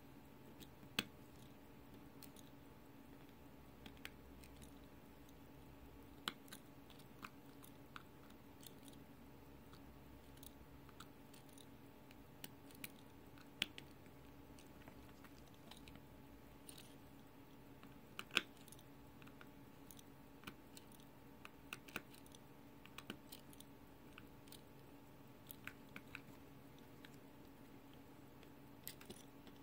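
Faint, scattered small clicks and taps of metal hand tools on the parts of a pocket-watch movement, the sharpest about 18 seconds in, over a steady low hum.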